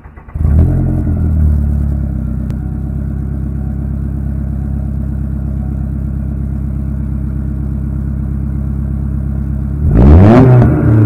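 2012 Ford Focus four-cylinder engine with its rear muffler deleted, heard at the tailpipe. It starts about half a second in, flares up briefly, then settles into a steady idle, and near the end it is revved once, the pitch rising sharply and falling back.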